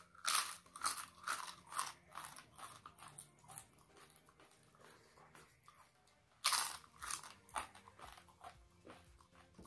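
Crunching of thin, crisp fried crackers being bitten and chewed: a run of sharp crunches about two a second, then softer chewing, and a fresh loud bite about six and a half seconds in followed by more chewing.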